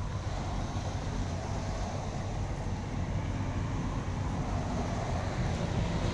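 Steady low rumble of highway traffic.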